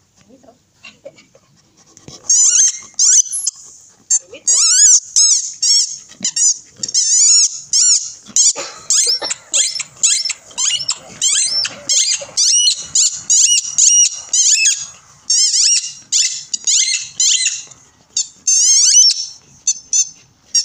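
A dog chewing a rubber squeaky ball, making quick runs of high, wavering squeaks, many per second, that start about two seconds in and go on in bursts with short pauses.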